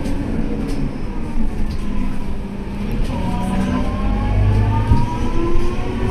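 Scania K230UB bus's diesel engine and ZF Ecomat automatic gearbox, heard from inside the cabin while driving; after a short dip about halfway through, the bus pulls away again with a gearbox whine that climbs steadily in pitch as it speeds up. The uploader calls this gearbox loud.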